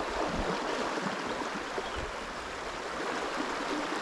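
Steady rush of fast river current over a riffle.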